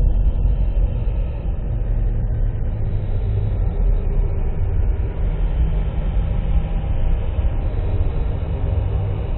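Dark electronic film-score drone: a dense, heavy low rumble with faint sustained tones held above it, steady throughout.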